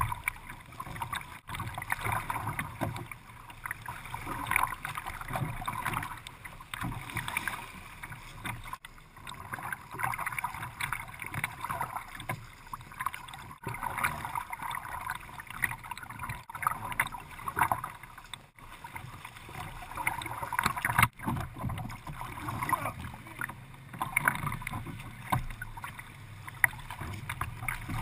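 Kayak paddling on open water: paddle blades splashing and water sloshing against the plastic hull in uneven surges, broken by a few very brief gaps.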